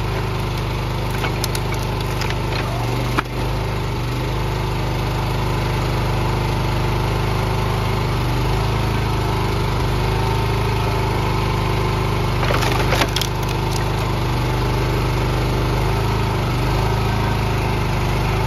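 A small engine drives a hydraulic log splitter, running steadily. Over it come sharp cracks and splintering as western hemlock rounds split on the wedge: a few about two to three seconds in, and another cluster around thirteen seconds.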